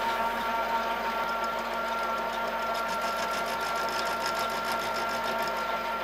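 Milling machine running, its end mill cutting the end of a small metal bracket to trim it to length: a steady mechanical whine with a fine, fast, even ticking over it.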